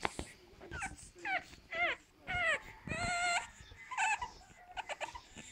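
Eight-week-old pug puppy whining: a run of short high whimpers, several falling in pitch, with one longer held whine about three seconds in, as it tries to climb onto the sofa.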